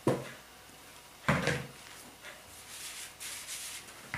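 Risen yeast dough tipped out of a plastic bowl onto a floured table: a soft thump at the start and a heavier one just over a second in, then faint rustling as hands handle the dough.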